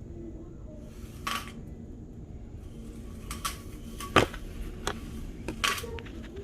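Dishes and utensils clattering in a kitchen: a series of sharp clinks and knocks, the loudest about four seconds in, over a steady low hum.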